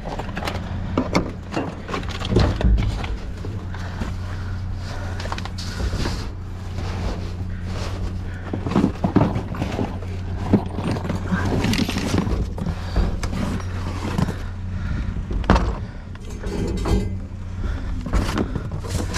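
Hard objects and tools being rummaged through and knocked about, in a run of irregular clanks, clicks and thuds, over a steady low hum.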